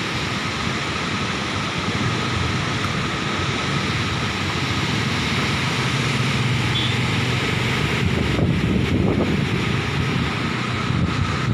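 Floodwater rushing out through a dam's open sluice gates and churning in the channel below, a steady rushing noise mixed with wind buffeting the microphone. A low hum joins it for a few seconds in the middle.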